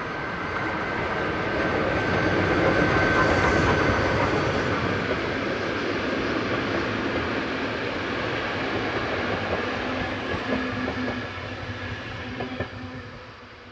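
Steam-hauled passenger train passing by: loudest as the locomotive goes past about three seconds in, then the coaches roll by with wheel clatter on the rail joints, fading away near the end.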